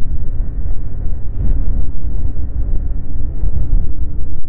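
Snowmobile engine running at a steady speed while riding a trail, under a loud low rumble with a steady drone. It breaks off briefly near the end.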